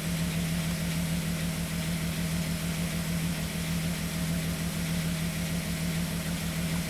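1998 VW Eurovan engine idling steadily with a misfire, which the mechanic traces to the number 4 injector drawing no current.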